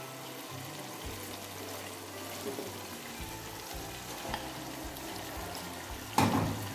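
Onion and tomato masala frying in oil in a pot, a steady sizzle with a few light wooden-spoon stirs. Near the end there is one loud knock as raw chicken pieces are tipped into the pot from a glass bowl.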